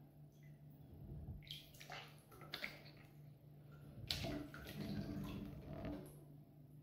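Bathwater splashing and sloshing softly in a full tub as an arm is lifted out of the water and laid on the rim, in two short bouts, about a second and a half in and again around four seconds in. A steady low hum runs underneath.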